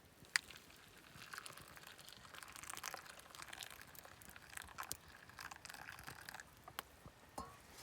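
Crinkling and rustling of something being handled, with scattered sharp clicks.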